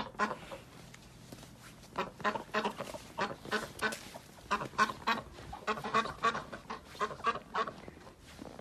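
Several white domestic ducks quacking: short calls repeated rapidly and overlapping, few at first and then a dense run from about two seconds in.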